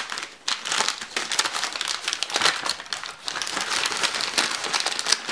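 A purple Lush paper bag crinkling and rustling in the hands as a bubble bar is unwrapped from it, a dense run of small crackles throughout.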